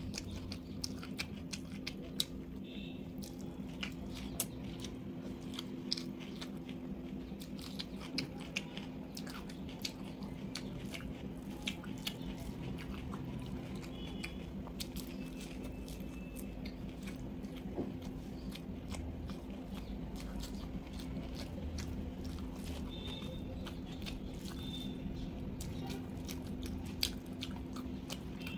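Close-miked chewing with frequent wet mouth clicks, mixed with fingers working rice and vegetables on a plate, over a steady low hum.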